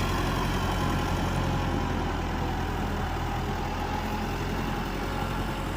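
A motor vehicle's engine running steadily, with a low, even hum.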